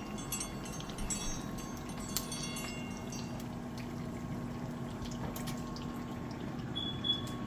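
Kitchen sounds: a steady watery hiss, with a few light ringing clinks like dishes in the first few seconds.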